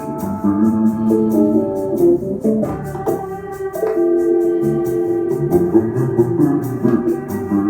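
Instrumental background music: held notes and plucked notes that change every second or so, over a steady, quick, high ticking rhythm.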